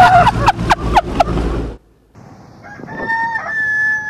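A rooster crowing. A call broken by quick clucking notes ends a little under two seconds in. After a short gap comes a second, long crow that holds one pitch and drops at its close.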